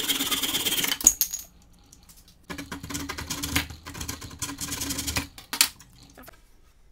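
Handsaw cutting through a dry bamboo cane clamped in a vise with fast strokes, ending about a second in with a sharp ringing clack as the cut finishes. After a short pause comes a second run of quick rubbing strokes for about three seconds.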